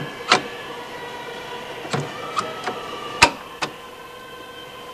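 Sharp knocks and clicks of arc shields and fittings being handled and seated in a W class tram's underfloor electrical equipment, about six in all, the loudest a little past three seconds in.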